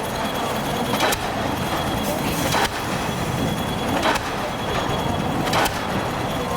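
Pile hammer on an excavator-mounted pile driver striking a pile in a steady rhythm, about one blow every second and a half, four blows in all, over the constant running of the machine.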